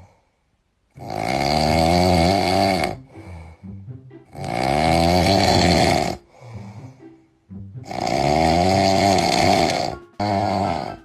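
A sleeping man snoring loudly: three long snores, each about two seconds, coming about every three and a half seconds, with fainter sounds between them.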